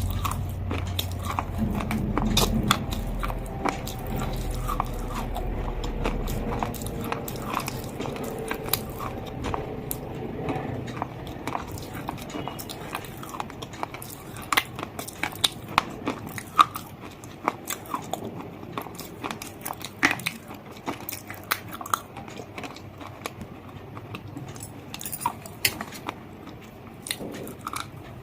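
Close-up biting and chewing of something hard and crunchy: a run of sharp crunches, with a low rumble in the first few seconds and the crunches growing sparser later.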